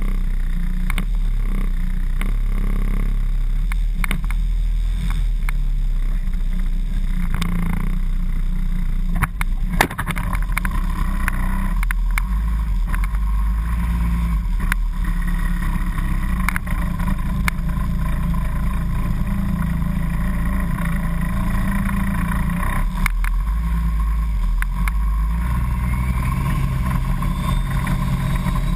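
Flat-nose school bus engine running steadily, heard from inside the cab, with a few short knocks.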